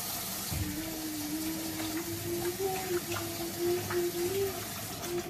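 Kitchen faucet running into the sink in a steady hiss, with a few light clinks of dishes. A pitched tone that wavers slightly sounds over the water from about half a second in.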